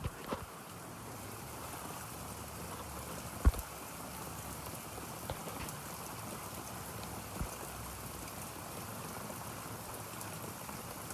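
Steady rush of water from a swollen, flooding creek. A few sharp knocks cut through it, the loudest about three and a half seconds in.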